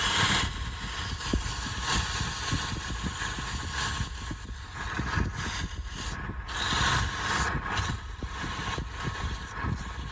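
Wood lathe running, with irregular knocking and scraping from a tool working the spinning palm-wood piece.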